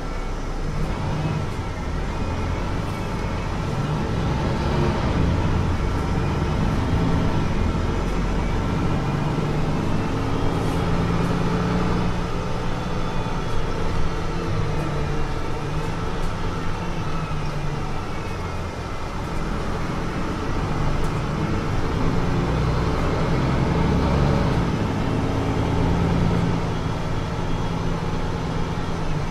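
Mercedes-Benz Citaro C2 city bus under way: the engine runs steadily, with a whine that rises and falls in pitch several times as the bus speeds up and slows down.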